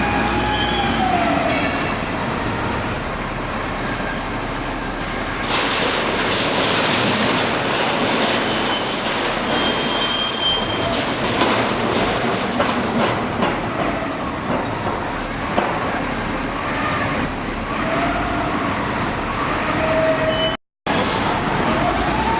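YDJ-6300 hydraulic scrap metal shear baler working: a dense, continuous mechanical noise of the machine pressing and shearing scrap metal, with metal squeals that glide up and down in pitch. The sound drops out for an instant near the end.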